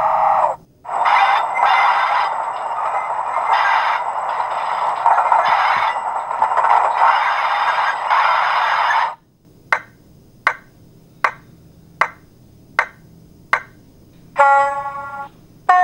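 Sound effects from a Hornby TTS sound decoder for a BR Class 40 diesel locomotive. A steady primer hum cuts off about half a second in. Next comes a slow flange squeal of wheel flanges grinding against the rail, lasting about eight seconds. It is followed by the steam-heat boiler's Spirax valve clicking six times, about three-quarters of a second apart, and two short pitched tones near the end.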